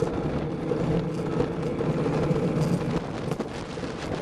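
Luge cart's wheels rolling fast down a concrete track: a steady rolling noise with a low hum from the wheels and cart, and a few brief knocks.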